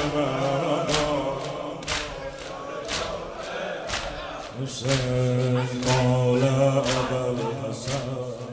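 Male voices chant a Shia mourning lament (noha) in chorus over a steady low held tone. A sharp beat marks time about once a second.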